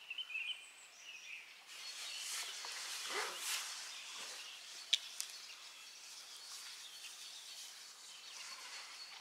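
Faint outdoor ambience. Small birds chirp briefly at the start, then a swell of rushing noise comes about three seconds in and a single sharp click about five seconds in, with a thin steady high tone after it.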